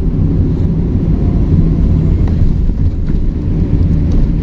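Steady low rumble of a truck engine running, with road noise.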